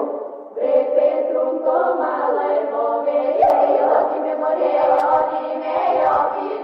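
A choir singing held chords, with a short break about half a second in.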